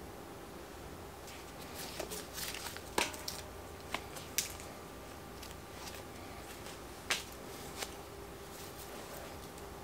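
Lizard Skins DSP polymer handlebar tape being unrolled and wrapped around a road bike's drop bar: crinkling rustle of the tape, with about six sharp clicks and snaps as it is handled and pulled, the loudest about three seconds in.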